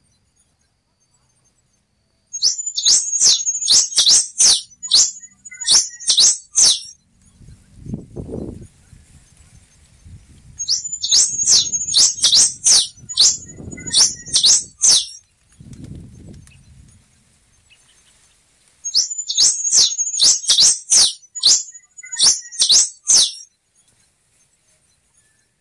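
Black-and-rufous warbling finch (quem-te-vestiu) singing three bouts of quick, sharp high notes, each about four seconds long and opening with a short steady whistle.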